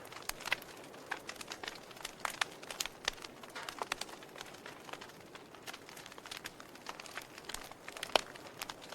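Wood fire in a fireplace crackling, with many irregular sharp pops and snaps over a soft steady hiss; the loudest pop comes just past eight seconds in.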